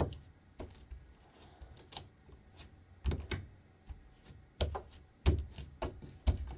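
Irregular light clicks and knocks, a few with a dull thump, of someone handling things and bumping about close to the microphone.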